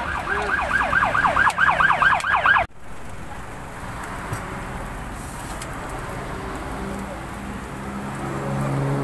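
A siren yelping: quick repeated rising wails, about four a second, growing louder, then cut off abruptly about two and a half seconds in. After that, a steady background hum with faint voices.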